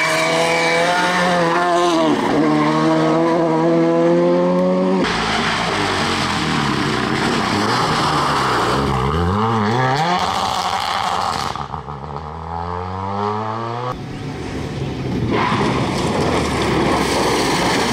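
Rally cars driven flat out on a stage, heard in quick successive takes. First one engine is held at high revs and dips briefly as the driver lifts. Then another car's engine note falls under braking and climbs again under hard acceleration through the gears. Near the end the engine mixes with the hiss of tyres sliding and gravel spraying.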